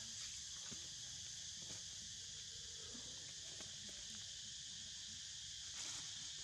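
Steady high-pitched drone of an insect chorus, with a few faint clicks on top.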